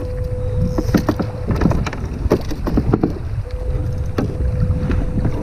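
Wind buffeting the microphone and water moving around a plastic sit-on-top fishing kayak, with scattered knocks and clicks as gear is handled on the hull. A thin steady tone sounds twice, each time for about two seconds.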